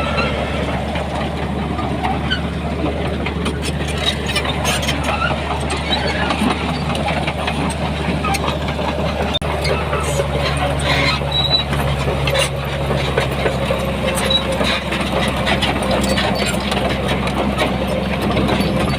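Heavy diesel earthmoving machinery running steadily, with scattered clanks and rattles over the engine drone.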